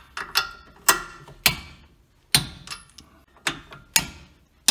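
Socket wrench tightening the ball-joint nuts on a lower control arm: a run of sharp metallic clicks, roughly two a second, each with a short ring.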